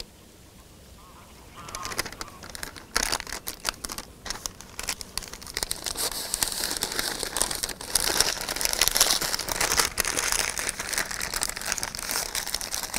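Cellulose food-wrapping paper (Oddy Uniwraps paper foil) crinkling and rustling as hands fold it around a stack of patties. The crinkling starts about two seconds in and goes on as a dense, irregular crackle.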